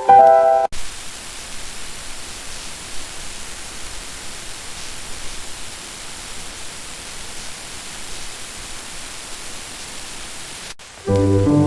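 Steady hiss of rain ambience, an even noise that switches on abruptly just under a second in and cuts off abruptly near the end. Soft piano music plays briefly at the start and comes back at the very end.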